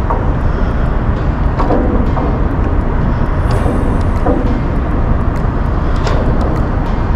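Steady, loud engine and machinery rumble, deepest at the low end, as a pilot boat lies alongside a ship during pilot boarding.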